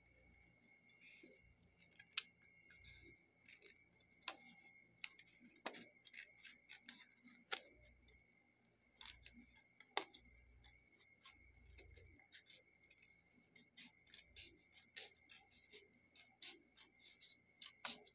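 Small scissors snipping through a sheet of patterned paper: a string of short, sharp snips, spread out at first and coming quickly one after another near the end.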